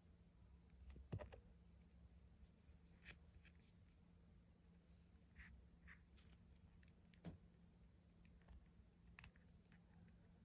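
Near silence broken by faint, scattered clicks and light taps of small things being handled, with a slightly firmer knock about a second in and another about seven seconds in.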